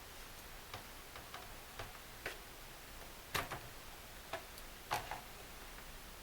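Irregular small clicks and taps of hands and tools working on the circuit boards and connectors inside a plasma TV, the two loudest about three and a half and five seconds in.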